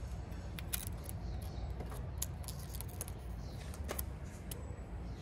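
Light crackling and small sharp clicks of a plastic backing liner being peeled off a clear paint-protection film strip and handled by the fingers, over a steady low rumble.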